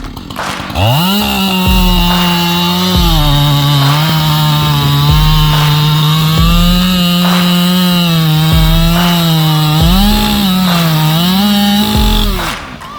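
Two-stroke chainsaw revving up about a second in and running at high revs, its pitch sagging and recovering several times as it takes load in the cut, then dropping off near the end.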